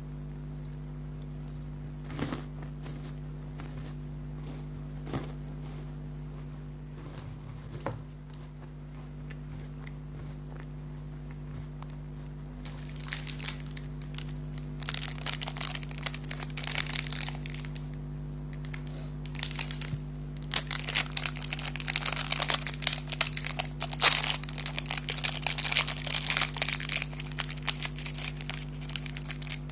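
A few isolated clicks. From about halfway, a snack wrapper crinkles and tears in dense, crackly bursts as it is opened and handled.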